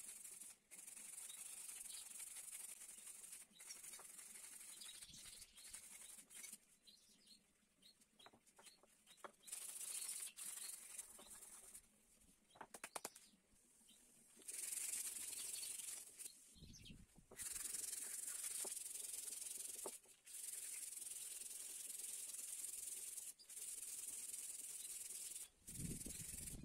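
Wooden stool legs sanded by hand with a small piece of sandpaper: a dry, hissing scratch in stretches of a few seconds, with short pauses between, a few light clicks, and two low thumps, one about two-thirds of the way through and one near the end.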